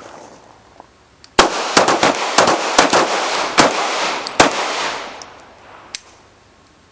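A rapid, overlapping string of pistol shots from more than one shooter, about ten reports over three seconds, each shooter firing a four-shot string, starting about a second and a half in. The reports ring out and fade over the following second or so.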